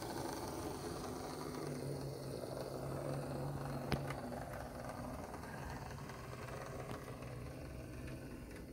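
Lima OO gauge model GWR diesel railcar running slowly on its track: a steady low electric-motor hum with wheel rumble, growing fainter near the end. A single sharp click about four seconds in.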